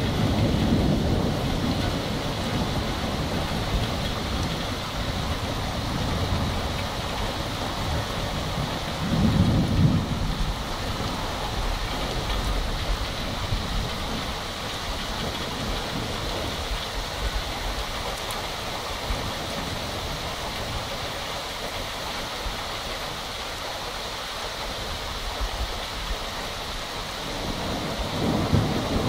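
Rain falling steadily through a thunderstorm, with low rolls of thunder. The loudest roll comes about ten seconds in, and another builds near the end.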